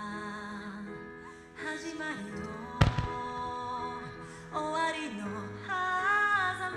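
A song with a woman singing plays throughout. A single firework shell bursts with a sharp bang about three seconds in.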